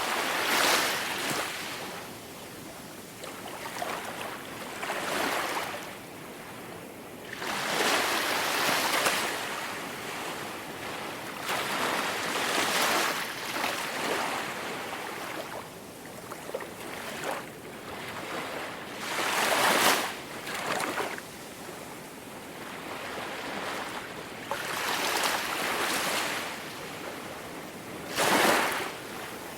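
Ocean waves breaking on a shore, a surge of surf every few seconds, some louder than others, with the hiss of the wash in between.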